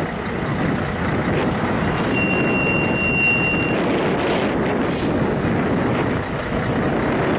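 Aero L-39 Albatros jet trainer flying aerobatics overhead, its single turbofan engine heard as a steady, distant rumble. A short, steady high tone sounds about two seconds in.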